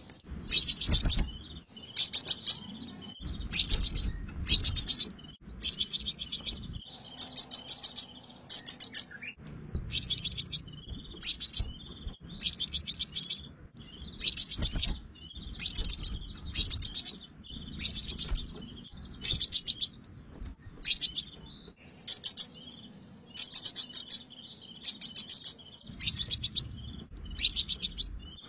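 Sunbird song used as a trapping lure: rapid high-pitched trilled chirps in short bursts, one after another about a second apart, with a low rumble of background noise under many of the bursts.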